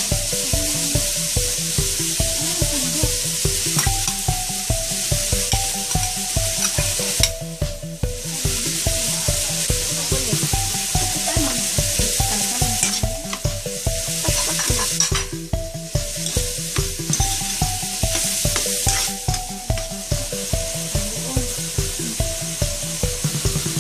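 Ground pork and sliced green chillies sizzling in hot oil in a wok, stirred and turned with a metal spatula. The sizzle eases briefly a few times. Background music with a steady beat and a simple melody plays underneath.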